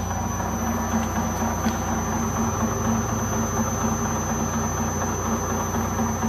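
Acraturn metal lathe running at low spindle speed with its chuck turning: a steady motor and drive hum.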